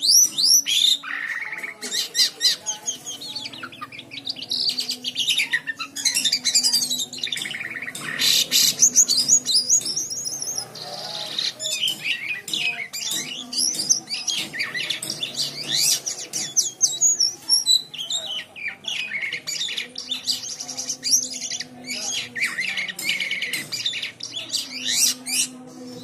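A caged jalak kapas (white-shouldered starling) singing a long, busy song of rapid rising and falling whistles and chirps, with only brief breaks.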